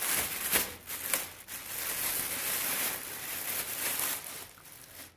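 Thin plastic dust bag crinkling and rustling as it is handled and pulled off a subwoofer, with a few sharper crackles in the first second and a half, dying down near the end.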